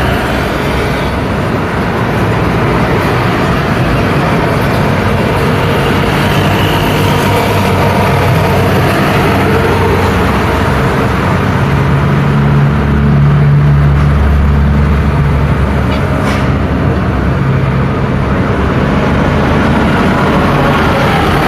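Road traffic passing close by in a steady stream: trucks, cars and motorcycles driving past with tyre noise and engine hum. A heavier vehicle's low engine sound swells loudest about two-thirds of the way in.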